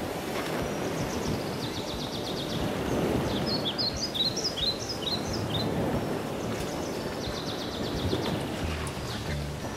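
Outdoor ambience: a steady rushing background with small birds chirping, in quick clusters of high chirps and several fast, even trills.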